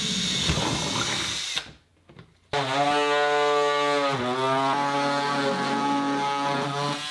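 A cordless drill bores through a clear plastic KeyKeg liner for about a second and a half. After a short pause, battery-powered electric cutters start and run with a steady pitched hum as they cut the liner along a line. The hum dips briefly about four seconds in.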